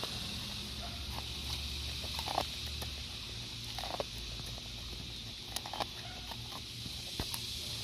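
A cocker spaniel gnawing kernels off a cob of corn on the cob: irregular crunches and clicks of chewing, a few of them louder, at about two and a half, four, and nearly six seconds in.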